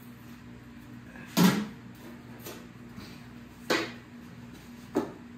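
Four short, sharp knocks and clacks over a steady low hum, the loudest about a second and a half in.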